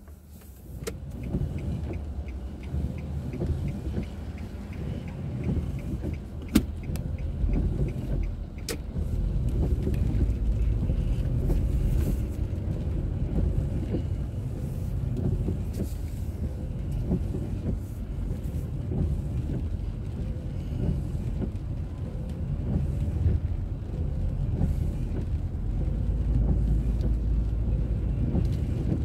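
Car driving on city roads, heard from inside the cabin: a steady low rumble of engine and tyres. A light, rapid ticking sounds for the first few seconds, and a couple of sharp clicks come a little later.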